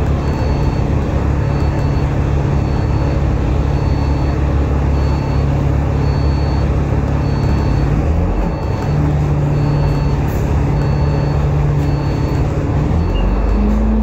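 Alexander Dennis Enviro500 MMC double-decker bus's diesel engine heard from inside the bus while under way: a steady drone that dips briefly about eight and a half seconds in, then rises in pitch near the end as the bus pulls harder. A light, high-pitched tick repeats a little more than once a second throughout.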